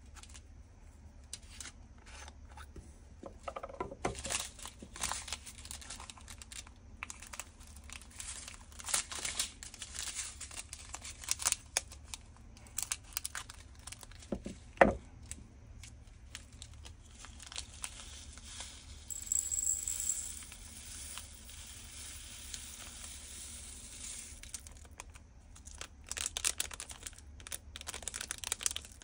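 Foil-and-plastic packets of diamond-painting resin drills crinkling and rustling as they are handled and cut open with scissors, with one sharp scissor snip about 15 seconds in. For a few seconds in the latter half there is a steady hiss, like tiny drills pouring into a small plastic bottle, and then more crinkling of packets near the end.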